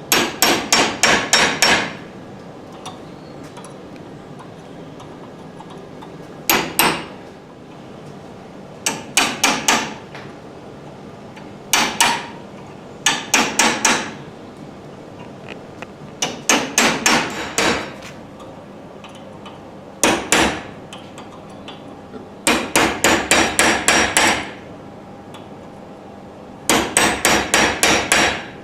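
Small hammer tapping a chisel into stainless steel, cutting in fine detail: about nine short runs of quick, sharp metallic taps, several taps to a run, with pauses between.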